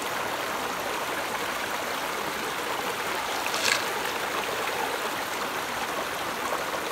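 Shallow forest stream babbling over rocks and boulders: a steady rush of water. A brief faint high sound a little past halfway.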